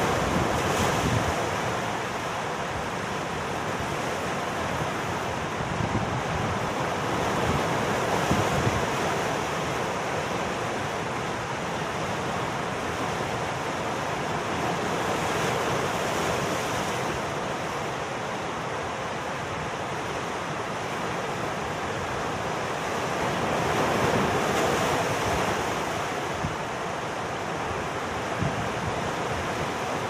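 Sea surf breaking and churning among coastal rocks: a steady rushing wash that swells louder about every eight seconds as each wave comes in.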